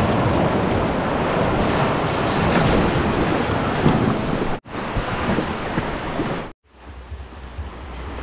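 Rushing river white water with wind buffeting the microphone. The sound cuts out abruptly twice, a little past halfway and again about two-thirds through. After the second break it comes back quieter and mostly as low wind rumble.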